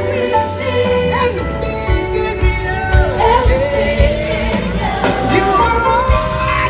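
Live gospel music: singers with a band, the voices sliding and bending through long held notes over bass and drum hits.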